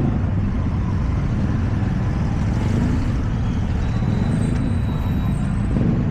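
Steady outdoor street noise with a low rumble, like traffic.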